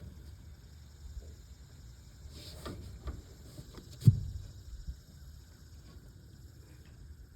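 A single sharp knock about four seconds in, over a low rumble and a few faint clicks.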